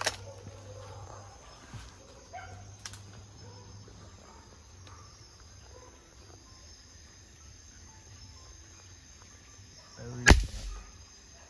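A single air rifle shot about ten seconds in: one sharp, loud crack that dies away quickly.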